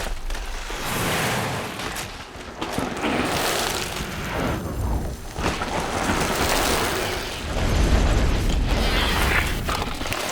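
Cinematic sound design: deep booming hits under a rushing, swelling noise that rises and falls every second or two.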